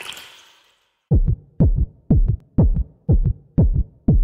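Electronic intro music: a lone kick drum beating about twice a second, each beat a quick drop in pitch. It starts about a second in, after a fading hiss.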